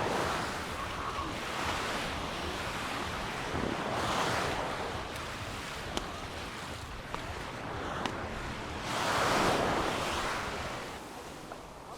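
Mediterranean surf: waves breaking and washing up the beach, swelling and fading every few seconds, the loudest wave about nine seconds in, with some wind on the microphone.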